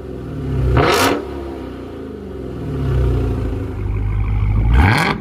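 2021 Dodge Charger Hellcat Widebody's supercharged 6.2-litre V8 revved from idle through a new set of 5-inch exhaust tips. There is a quick rev blip about a second in, then a longer rev that climbs from about three seconds in and peaks near the end.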